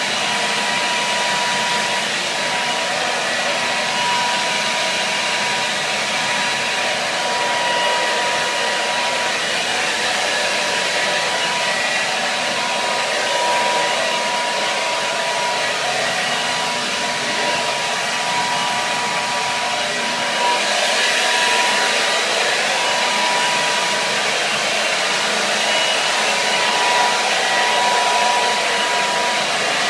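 Hair dryer running steadily: an even rush of blown air with a thin, high motor whine. The sound turns slightly brighter and louder about two-thirds of the way through.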